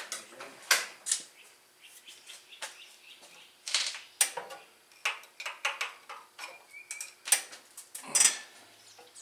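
Irregular metallic clicks and clinks of a long screwdriver knocking against the engine as it is worked toward the spark plug hole of a Kohler flathead engine, the loudest knocks coming about four and eight seconds in.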